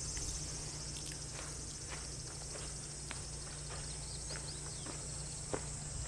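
Quiet outdoor ambience: a steady high-pitched insect drone over a low rumble, with faint scattered ticks.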